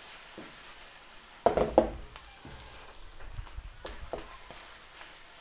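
Squid, bell pepper and mushrooms sizzling in a hot wok as they are stir-fried, with two loud sharp knocks against the pan about one and a half seconds in and a few lighter knocks after.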